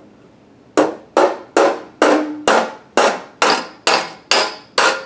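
Hammer blows on a sheet of 521 phosphor bronze held over a leather shoe. After a short pause they come as a steady series of about ten strikes, a little over two a second, each with a brief metallic ring.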